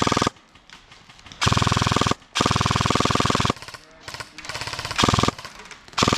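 Airsoft gun firing rapid full-auto bursts close by: several bursts with short gaps between them, the longest a little over a second, and a last short burst near the end.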